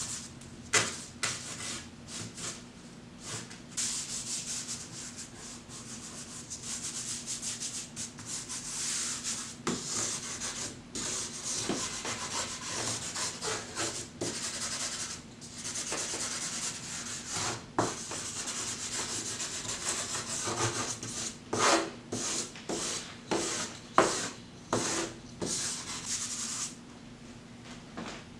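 Stick of homemade wood charcoal scratching and rubbing across brown paper taped to a wall, in repeated strokes. Sharp taps come as it strikes the paper, most of them in the last several seconds.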